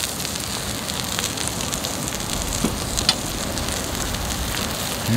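Pork belly sizzling on a hot griddle: a steady frying hiss with a few sharp pops of spitting fat.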